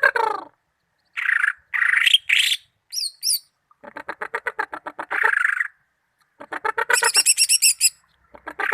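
Cucak ijo (greater green leafbird) singing a string of short, varied song phrases, several of them fast rattling trills of evenly repeated notes, with brief pauses between them.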